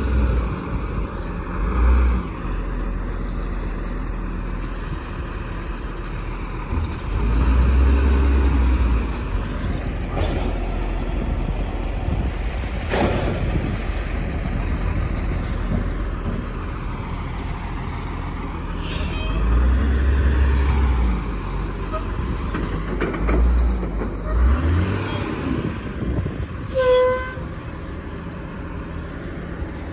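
Diesel engine of an automated side-loader garbage truck running, revving up in surges several times as the truck manoeuvres. A short beep sounds near the end.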